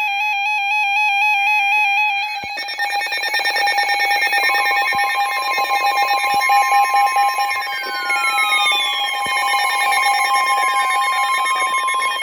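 Electronic emergency alert tones layered over one another: a warbling tone from the start, joined a few seconds in by a steady high tone, then several falling sliding tones near the end.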